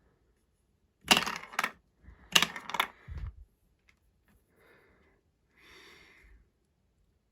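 Marbles dropping and rattling along plastic Duplo-compatible Hubelino marble-run track. There are two bursts of clatter, about one and two seconds in, then a dull knock and a few much fainter rattles.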